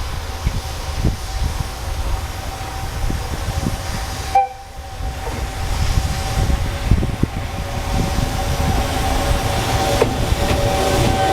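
A freight train hauling new Seibu 30000 series cars rolling by: a continuous low rumble with steady high tones running through it. The sound briefly drops out about four and a half seconds in, then builds again towards the end.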